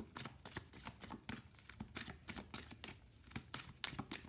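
A deck of oracle cards being shuffled and handled by hand: a faint, irregular run of light card clicks and rustles, several a second.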